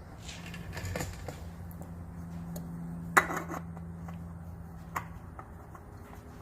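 Metal tools and parts being handled: a few light clinks, then a sharp metallic clack about three seconds in and another near five seconds, over a steady low hum.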